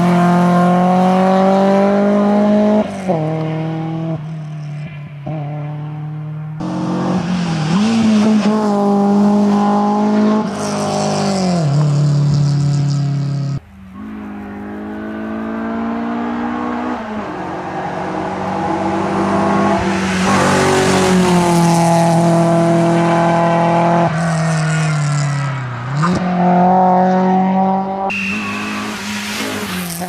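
BMW E30 318iS rally car's 1.8-litre four-cylinder engine revving hard through the gears, its pitch climbing and then dropping at each shift. About halfway the sound breaks off abruptly and starts again as the car approaches, rising steadily, dropping sharply on a downshift near the end and revving back up.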